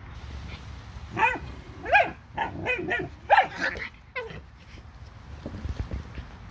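A dog barking, a quick run of about eight short high barks between about one and four seconds in. A few soft thumps follow near the end.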